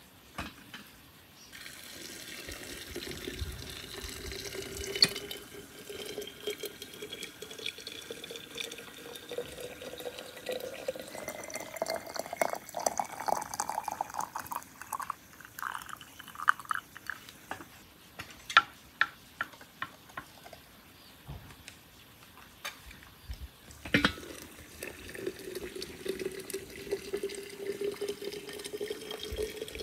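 Water poured in a steady stream from an enamel kettle into glass jars of plums and sugar, its tone rising as each jar fills. Partway through the pour stops for a few drips and light knocks, then a sharp knock and the next jar begins to fill, its tone starting low again.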